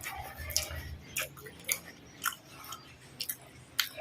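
Close-up chewing of pizza with wet mouth clicks and smacks, about half a dozen sharp clicks at uneven intervals.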